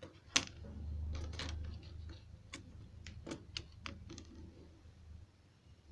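Irregular light clicks and taps, about seven in all and the sharpest about half a second in, over a low rumble that swells briefly about a second in.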